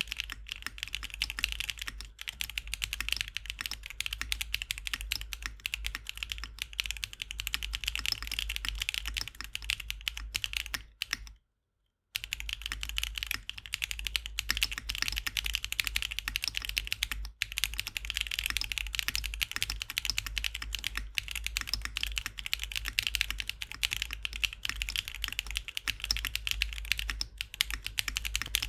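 Fast, continuous typing on a Tofu60 2.0 mechanical keyboard fitted with Akko Cream Yellow V3 Pro linear switches: a dense stream of keystrokes. About eleven seconds in, the sound cuts out completely for about a second, then the typing resumes.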